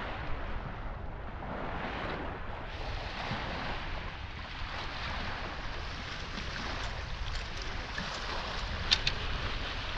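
Wind buffeting the microphone over small lake waves washing onto the shore, with a brief sharp click about nine seconds in.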